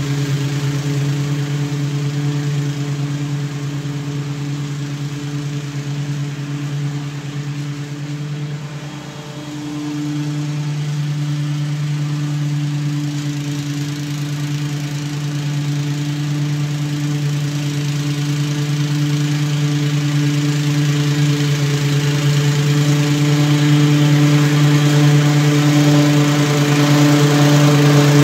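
Honda 270cc (8.5 hp) single-cylinder engine on a walk-behind lawn mower running at steady speed while mowing grass. It fades a little about a third of the way in as the mower is farthest off, then grows steadily louder as it comes back toward the listener.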